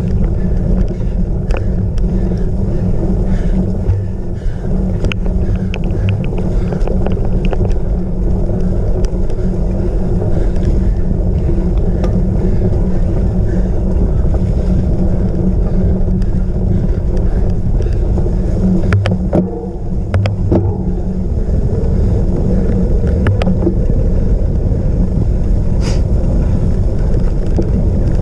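Wind buffeting the microphone in a steady low rumble while a cyclocross bike is ridden over rough ground, with scattered clicks and rattles from the bike; the rumble drops briefly about nineteen seconds in.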